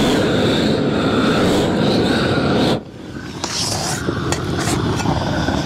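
Propane roofing torch burning steadily as it heats the seam of a rubber roof membrane so it welds down. The sound drops sharply about three seconds in, then carries on slightly quieter with a few light scraping clicks from the hand tool pressing the membrane.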